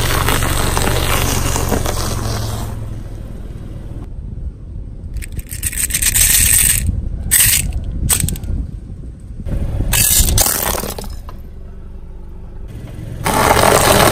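A car tyre rolling slowly over brittle things and crushing them, in a few separate takes: a long crunch of wafer sticks under the tyre with the car's engine humming low, a run of sharp cracks and crackles in the middle, then dried vegetable chips crunching loudly under the tyre near the end.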